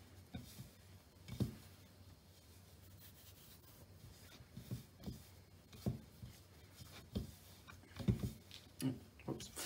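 Hands mixing milk into a flour-and-butter crumb in a plastic mixing bowl, working it toward a scone dough: quiet rubbing and squishing with scattered soft knocks of hands against the bowl, more frequent in the second half.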